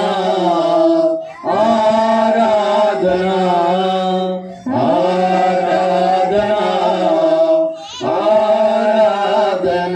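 Voices singing a Telugu Christian worship chant. The phrases last about three seconds each, with a short break between them.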